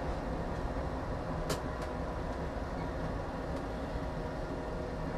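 Tram running along the track, heard from the driver's cab: a steady rumble with a faint whine, and two sharp clicks about a second and a half in.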